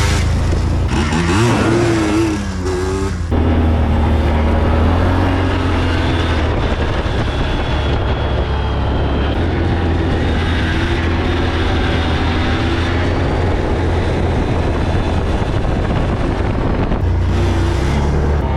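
2003 Yamaha Blaster ATV's single-cylinder two-stroke engine running under way, revving up and down in the first few seconds with a brief letup about three seconds in, then pulling steadily.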